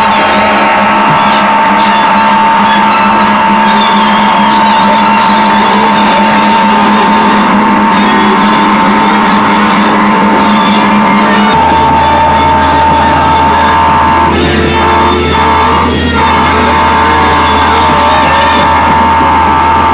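Live harsh noise music from a Japanese noise band: a loud, dense wall of distorted noise with a steady high tone held over it. About halfway through, the low hum underneath drops lower.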